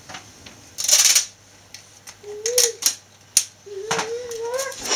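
Silver wrapping paper rustling and crinkling as it is handled, with a loud rustle about a second in and several sharp clicks and taps after it. A wavering hum comes twice in the second half.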